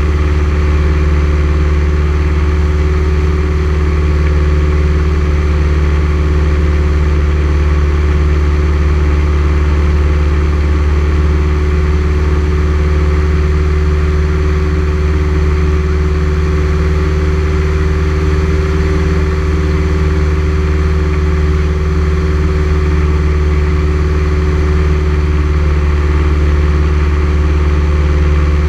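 Single-engine light aircraft's engine and propeller running steadily in flight, a loud, even drone heard inside the cabin.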